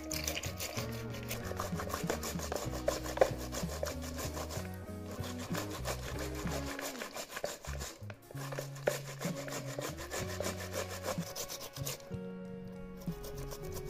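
Ripe tomatoes rubbed by hand against a plastic box grater: rapid rasping strokes, pausing briefly twice and stopping near the end. Background music plays underneath.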